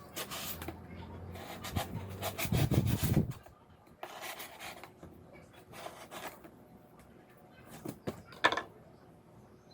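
Repeated rubbing and scraping strokes with a few light knocks, the densest and loudest run about two to three seconds in, then sparser strokes and a sharp click near the end.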